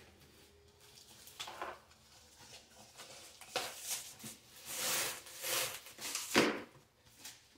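Knife slitting the packing tape on a cardboard box, then the box handled and its cardboard flaps pulled open with scraping and rustling. A sharp knock about six seconds in is the loudest sound.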